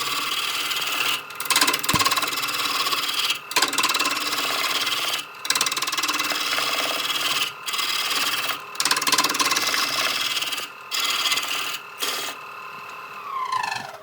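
Electric power tool working wood: a steady motor whine under loud abrading or cutting noise in repeated passes, with short breaks every second or two as the tool comes off the wood. About 12 seconds in, the cutting stops and the motor's whine falls away as it spins down after being switched off.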